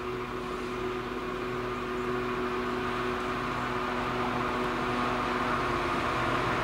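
Class 66 diesel-electric freight locomotive approaching under power, its two-stroke V12 diesel engine droning steadily and growing louder as it nears.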